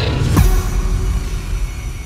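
Background music at a transition: the electronic track drops out, a falling swoosh sweeps down about half a second in, and a low drone carries on quietly.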